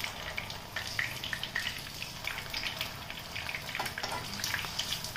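Oil sizzling steadily around cornflour-battered potato patties shallow-frying in a pan, with many small crackling pops.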